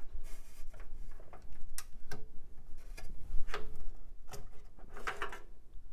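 Handling of a clip-on CPU heatsink and fan as it is unclipped and lifted off the processor: scattered sharp clicks and ticks of the metal retaining clip and plastic, with light scraping between them.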